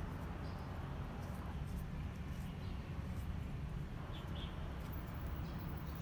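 Steady low hum with a few faint, light clicks from handling a small folding-knife blade and its wooden handle.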